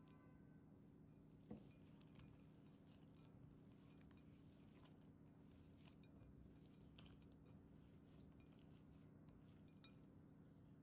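Very faint handling sounds of hands kneading chocolate-chip cookie dough in a glass bowl: scattered small clicks and clinks against the glass, with one slightly louder tick about a second and a half in, over a low steady hum.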